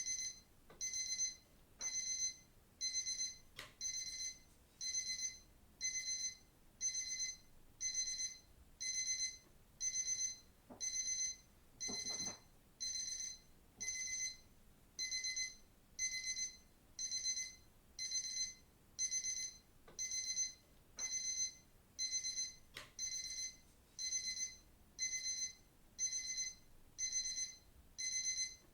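Digital watch alarm beeping: high-pitched electronic bursts repeating evenly about once a second.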